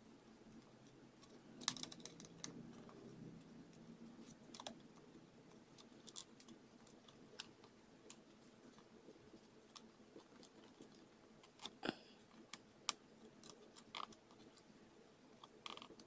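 Faint, scattered clicks and light taps of a 2.5-inch SSD in a rubber bumper being handled and pressed into a laptop's drive bay, the sharpest clicks about two seconds in and again around twelve seconds in.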